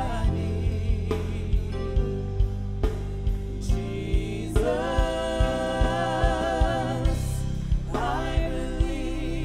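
Live gospel worship song: several singers in harmony over a band, with a steady kick-drum beat about twice a second.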